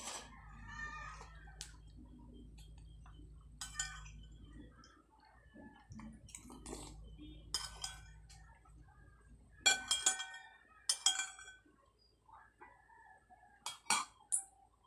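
Chickens clucking in the background, with sharp clicks and clinks of eating from a plate, loudest about ten and eleven seconds in.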